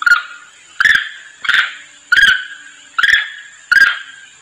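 Long-tailed macaque's call, played as a lure to draw other monkeys in: a sharp cry repeated about six times at an even pace, roughly one every three-quarters of a second, each starting abruptly and trailing off.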